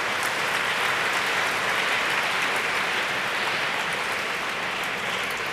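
A large audience applauding steadily, the clapping thinning slightly near the end.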